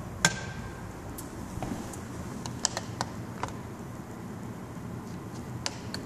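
A wall toggle switch that powers the dishwasher clicks on once, sharply, a moment in. Fainter scattered clicks and taps follow over a low steady hum.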